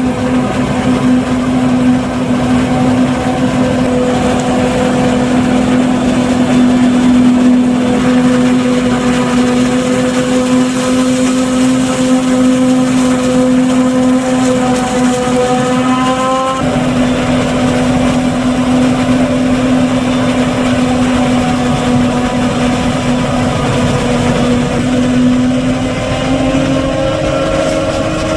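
Claas Jaguar 950 forage harvester chopping maize and blowing the silage out of its spout, with a Fendt tractor running alongside. A loud, steady machine drone with a strong hum; the sound changes abruptly about halfway through, and the hum steps up slightly in pitch near the end.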